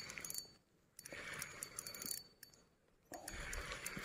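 Faint ticking and rustling of a fishing reel being wound in three short spells while a hooked fish is fought after a strike.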